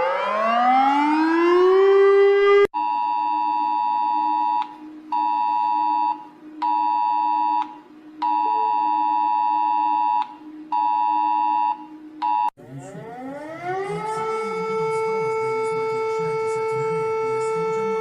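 A run of emergency alert sounds. First a siren glides up in pitch to a steady tone and cuts off abruptly. Then a two-tone alert signal pulses on and off in uneven beeps over a low hum for about ten seconds, cuts off, and a siren winds up from a low pitch to a steady high tone.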